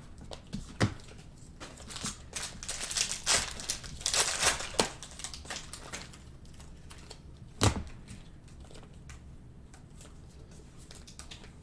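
Trading cards and card pack wrappers handled on a table: crinkling and rustling with scattered sharp clicks, one louder tap a little past halfway, then quieter handling.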